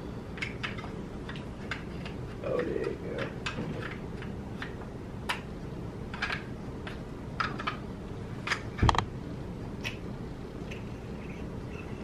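Scattered clicks and clacks of the metal and polymer parts of a Draco NAK9 9mm AK-pattern pistol being handled and fitted back together, with one loud clack about nine seconds in.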